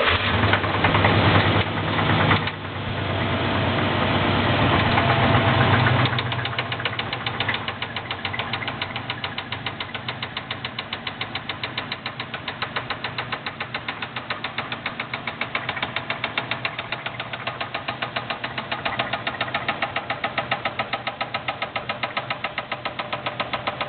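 Buick Roadmaster's LT1 5.7-litre V8 running fast and loud just after starting, then dropping back to idle about six seconds in, where a regular, evenly spaced knock is heard. The knock is from a spun connecting-rod bearing, with the piston hitting the head.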